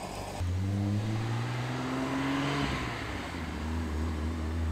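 Car engine running through its exhaust with a gentle rev: the pitch climbs for about two seconds, drops back, then holds steady at a low rumble.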